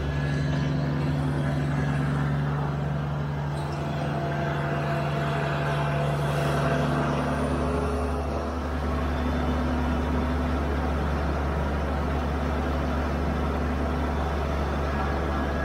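Kubota compact diesel tractor running steadily under load while mowing, a low even engine drone that shifts slightly in pitch about halfway through.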